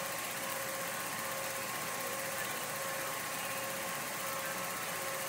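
Home-movie film projector running: a steady mechanical whir with a constant hum.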